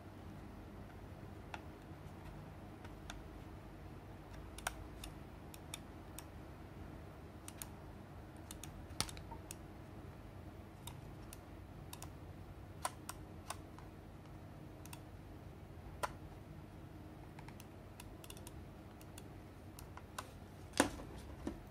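Scattered, irregular small clicks and taps of fingers pressing and smoothing grip tape onto the plastic shell of a Razer Viper Mini gaming mouse, over a faint steady hum. Two louder clicks come close together near the end.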